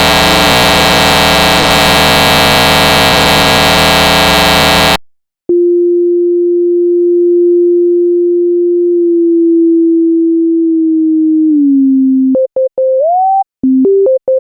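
A loud, harsh electronic blare cuts off abruptly about five seconds in. After a brief silence a single pure electronic tone holds steady, then drops a little lower. Near the end it gives way to a quick run of short beeps at changing pitches, one sliding upward, like a crude synthesized tune.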